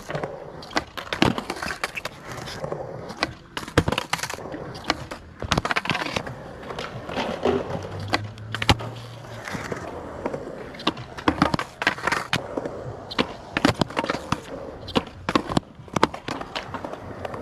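Skateboard wheels rolling on concrete, broken by many sharp, irregular clacks of the board popping, flipping and slapping down on the concrete during flip-trick attempts.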